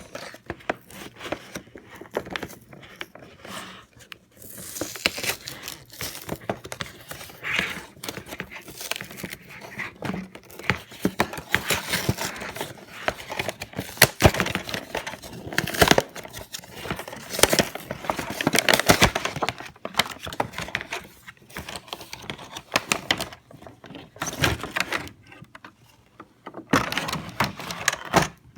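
Toy box packaging being worked open by hand: plastic and cardboard crinkling and tearing, with many small clicks and scrapes.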